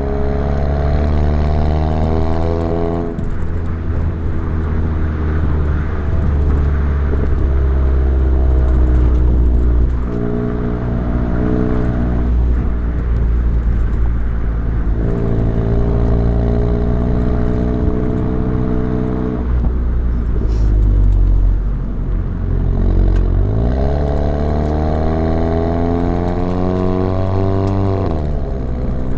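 Exhaust of a Volkswagen Mk7 Golf GTI with an ATP downpipe, driven hard through the gears. The engine note climbs under throttle and drops at each of several shifts, with one quick climb near the end.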